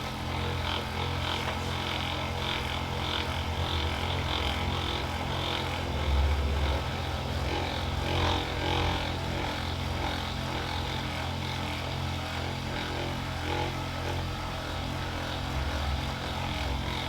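A steady low motor hum, swelling deeper for about a second around six seconds in and again near the end, with faint rustling over it.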